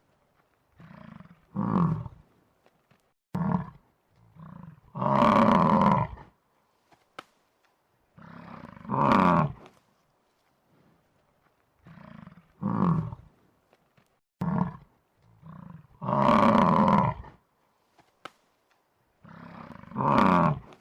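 An animal's loud calls: short calls followed by one long call of about a second and a half, in groups separated by silence, the same sequence repeating about every eleven seconds.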